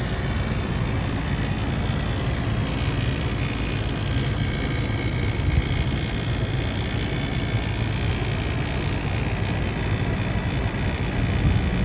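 A commercial HVAC unit runs steadily on test after a compressor replacement. It gives a constant low hum with fan air noise over it.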